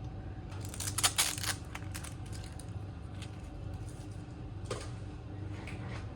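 A quick burst of light clicks and clatter about half a second in, and one more click near the end, like small metal tools being handled and set down on a workbench, over a steady low hum.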